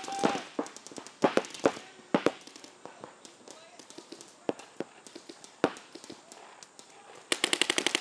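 Paintball markers firing: scattered single pops, then near the end a rapid burst of about a dozen shots in under a second.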